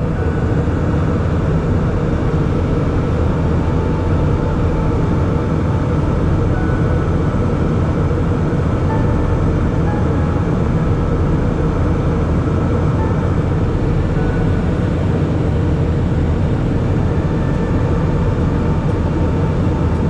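Cabin noise inside a jet airliner in flight: the engines and the rushing air make a steady, low drone that stays even throughout.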